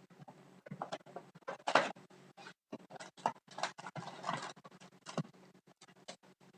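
Rustling and scraping of trading-card packaging being handled and torn open, in irregular bursts with the loudest about two seconds in.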